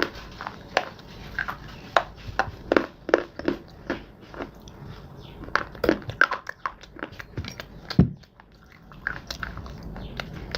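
Close-miked biting and chewing of hard, dry clay and slate pieces: a run of irregular sharp crunches, with one heavier crunch about eight seconds in.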